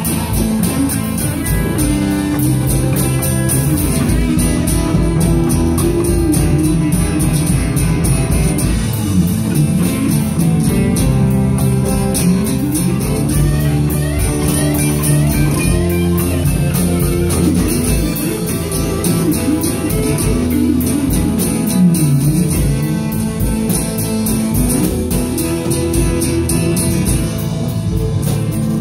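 Live band playing: electric guitars over a steady drum-kit beat, with the guitar sliding between notes.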